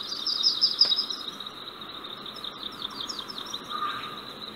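Birds chirping in two quick runs of short notes, one near the start and one about two and a half seconds in, over a steady high insect drone, like crickets.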